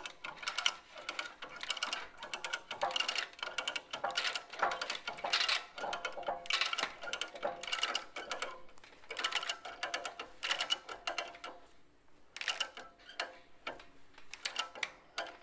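Hand ratchet worked in quick runs of sharp metallic clicks with short pauses between strokes, pulling a field fence tight.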